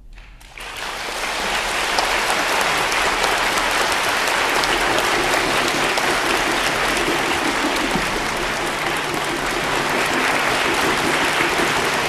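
Audience applauding: the clapping breaks out about half a second in, swells over a second or so, then holds steady and full.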